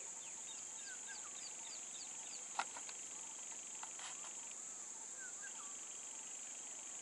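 Steady high-pitched insect drone with birds chirping in short repeated notes. A single sharp click about two and a half seconds in stands out as the loudest sound.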